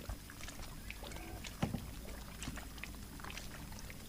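Faint water lapping against a fishing boat's hull, with a low steady rumble and scattered small clicks and knocks, the loudest about one and a half seconds in.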